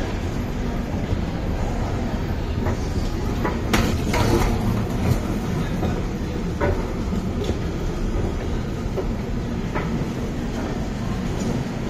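Railway station ambience: a steady low rumble with scattered clacks and knocks, the loudest cluster of them about four seconds in.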